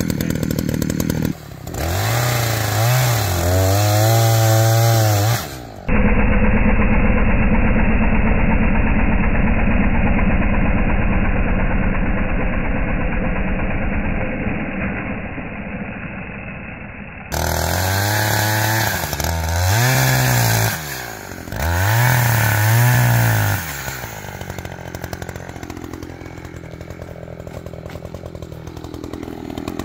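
Echo two-stroke chainsaw revving up and down several times, then running steadily under load as it cuts across a log. It revs again and drops back to a quieter, lower run near the end.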